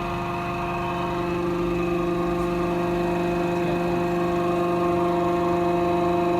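Electric drive of a DTH hammer breakout bench running with a steady whine, growing slightly louder as it works to break out the hammer's threaded joint.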